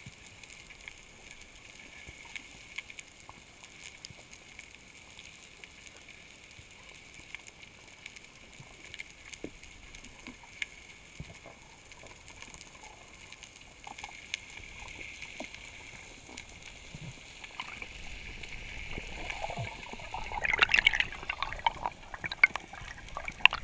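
Underwater ambience heard through a diving camera: a steady hiss with scattered faint clicks and crackles. About 20 seconds in come louder bubbling and gurgling as the freediver kicks up with bubbles streaming past the fins.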